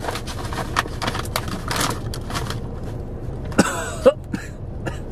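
Crinkly snack packet rustling and crackling as it is handled and opened, thick with crackles for about two and a half seconds, then quieter, with two short sharp sounds about a second apart near the end.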